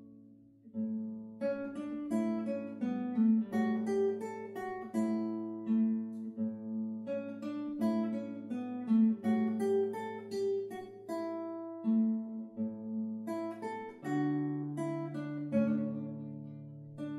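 Solo classical nylon-string guitar played fingerstyle: a slow piece (largo) with a melody over held bass notes. The playing thins out briefly just under a second in, then carries on, and a low bass note rings under the last few seconds.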